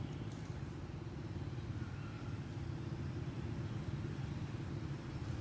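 Steady low rumble of background noise with no distinct events.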